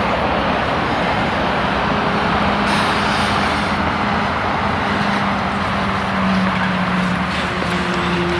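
Steady road traffic noise from passing trucks and cars, with a continuous engine drone running under the tyre noise.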